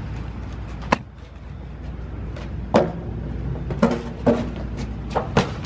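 Styrofoam packing inserts rustling and scraping against cardboard as they are pulled from a box, then a few sharp knocks as the foam blocks are thrown and land on a concrete floor.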